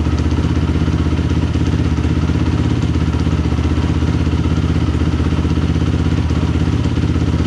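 Yamaha YZ426F's 426 cc four-stroke single-cylinder engine running steadily at a low, even speed, without revving.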